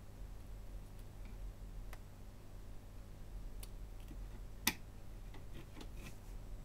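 Faint scattered clicks and taps of the small metal-and-plastic minidisc mechanism being handled and shifted under a microscope stand, with one sharper click about two-thirds of the way through, over a low steady hum.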